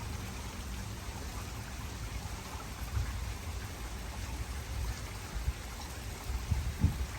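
Steady heavy rain falling, with floodwater rushing through a swollen creek channel: an even, continuous hiss over a low rumble.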